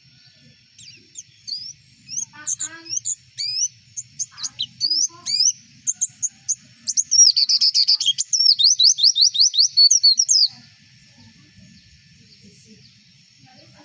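White-eye (pleci) singing: a run of quick, high, sweeping chirps that builds into a loud, rapid twittering trill and stops abruptly about three seconds before the end. This is the kind of song played to captive pleci to get them to start singing.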